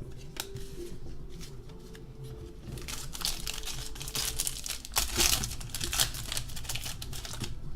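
Crinkling and tearing of a trading-card pack wrapper being ripped open and handled. It gets busier and louder from about three seconds in.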